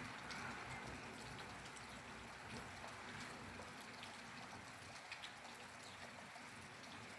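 Rainfall: a faint, even hiss of rain with scattered drops ticking through it.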